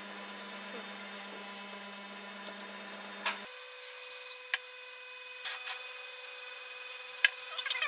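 Light clicks and taps of small wooden keys being handled and pressed into slots in a wooden box corner, a few scattered, then a quick cluster near the end, over a faint steady hum.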